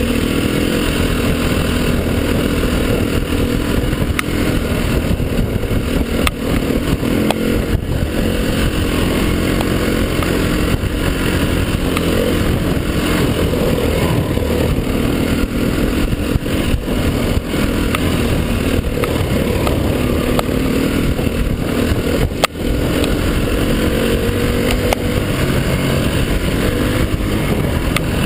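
Dirt bike engine running under way on a rough track, its pitch rising and falling with the throttle over a constant rushing noise, with one brief drop in the sound about two-thirds of the way through.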